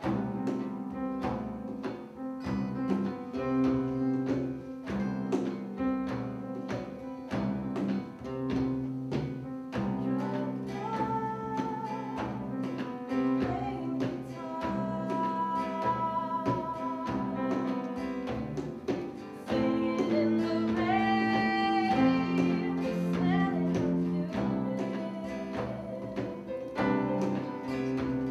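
Live band music with guitars and keyboards: sustained low chords over a steady pulse, with a higher held melody line coming in about ten seconds in.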